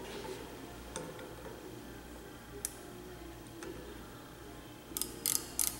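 Outside micrometer being closed on a crankshaft main bearing journal: a few light metallic clicks and taps as it is set on the journal, then a quick run of sharper clicks near the end as the thimble is turned down to take the reading.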